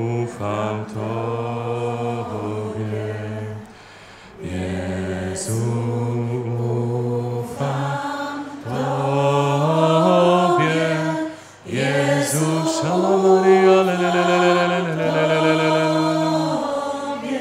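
Voices singing a slow, chant-like unaccompanied prayer song in long held notes that step from one pitch to the next, with two short breaks between phrases.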